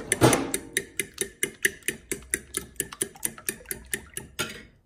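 Metal fork beating eggs in a ceramic bowl, clinking against the side of the bowl in a fast, even rhythm of about six or seven strokes a second. It stops shortly before the end.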